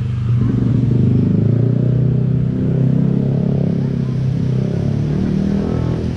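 Motorcycle engine running steadily at a low, even pitch.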